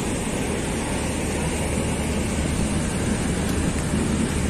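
Pakistan Railways GU20 diesel-electric locomotive running as it moves off along the track, a steady low rumble.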